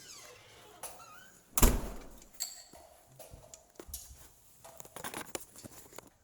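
One heavy thump about one and a half seconds in, followed by scattered light knocks, clicks and rattles.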